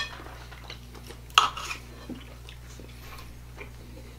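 Knives and forks clinking and scraping on plates as steak is cut: a sharp clink at the start and a louder one about a second and a half in, with faint scrapes between.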